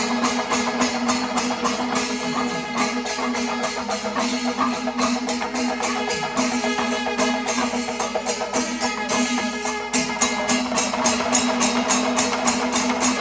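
Traditional percussion music: fast, dense drumming strokes over a steady held note.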